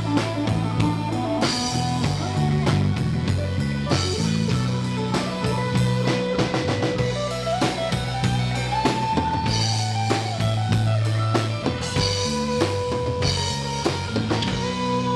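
Live rock band playing an instrumental break: a full drum kit with kick and snare driving a steady beat under a bass line and a melodic lead line that bends in pitch.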